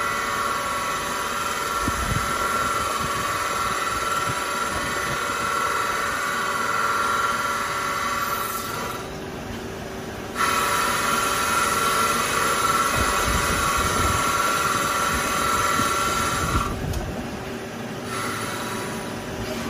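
Multi-tasking CNC lathe machining a metal part: a steady high-pitched whine over a wider hiss. It stops twice for a second or two and starts again.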